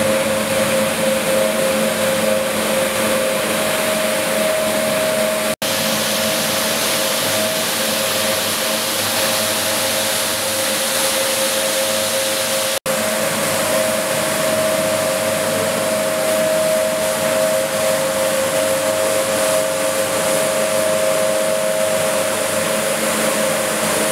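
Cleanvac BRS260 four-brush automatic carpet washing machine running: its electric gear motors give a steady hum while the rotating brush discs scrub the soaked carpet with a constant wet swishing noise. The sound cuts out for an instant twice, about five and a half and thirteen seconds in.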